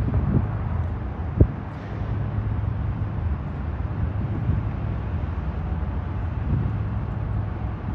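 Steady low rumble of a towboat's diesel engines driving it upstream, with a single sharp thump about a second and a half in.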